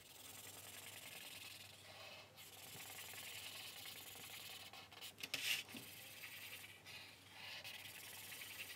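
Black felt-tip marker scrubbing back and forth on a paper plate, colouring an area in solid: a faint, continuous scratching, with a brief louder scrape about five and a half seconds in.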